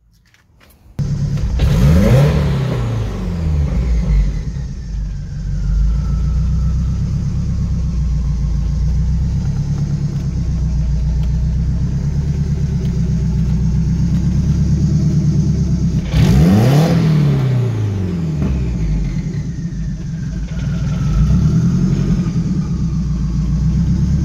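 E85-fuelled car engine on a MicroSquirt ECU firing up about a second in with no throttle, flaring briefly in revs and settling into a steady idle, with a faint whine that falls as the revs come down. The same quick flare and settle comes again about 16 seconds in, showing the tuned cold-start and warm-up enrichment holding a smooth idle.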